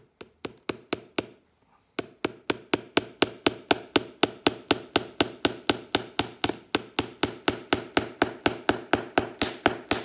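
A light hammer rapidly tapping small nails into a leather boot sole. A few lighter taps and a brief pause give way, about two seconds in, to a steady run of sharper blows at about five a second. The hammer is light, with "no wallop at all".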